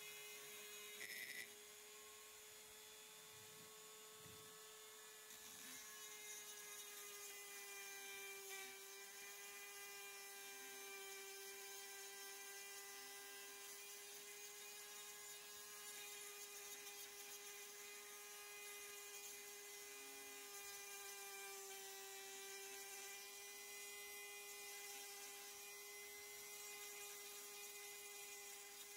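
Small handheld rotary tool with a fine burr grinding into porous stone: a faint, steady high whine that wavers slightly in pitch.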